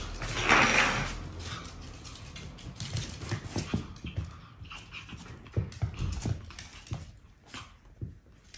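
Pomeranians playing on a wooden floor: a short loud burst of dog noise about half a second in, then scattered light taps and scuffles of paws and small play noises.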